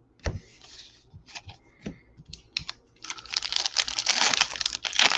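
Trading cards clicking and tapping as they are sorted by hand. From about three seconds in, a foil card pack crinkles and tears steadily as it is ripped open.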